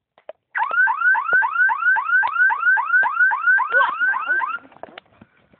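Electronic car alarm siren sounding a rapid, even run of rising chirps, about four a second. It stops abruptly after about four seconds.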